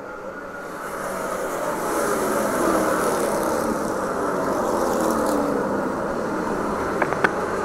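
Race cars running laps on a short oval track. The engine sound swells about a second in as cars come past and then holds steady. Two sharp clicks sound near the end.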